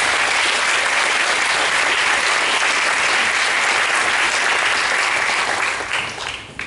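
Audience applauding. The clapping holds steady, then thins out and fades near the end.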